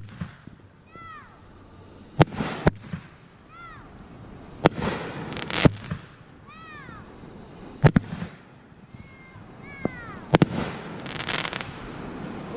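Fireworks going off: a string of sharp bangs, some in quick pairs, each followed by crackling. Short rising-and-falling whistles sound between the bangs.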